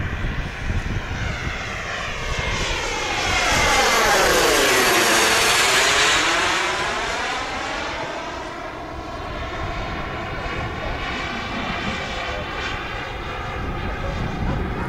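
Evojet 90 turbine of a Skymaster Viper 2M model jet running in flight as the jet makes a pass. The steady turbine rush swells to its loudest about four to six seconds in, with a swooshing sweep in tone as it passes, then eases off.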